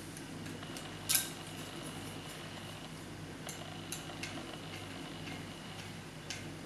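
Small screwdriver and tiny screws clicking and scraping against a model ship's hull part as screws are driven in, with one sharper click about a second in and a few lighter ticks later, over a steady low room hum.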